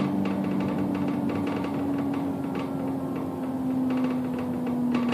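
Bus engine and drivetrain heard from inside the moving bus: a steady hum whose pitch slowly drops, over a fast, continuous rattle.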